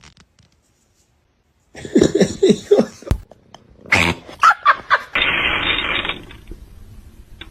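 A pet animal vocalizing: a run of short low cries, then a few higher-pitched cries, followed by about a second and a half of hissing noise.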